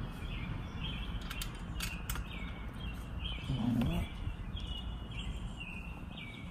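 Birds chirping over and over in the background, with a few light clicks of small screws and parts being handled on a car headlight housing about one and a half to two seconds in, and a short low murmur about four seconds in.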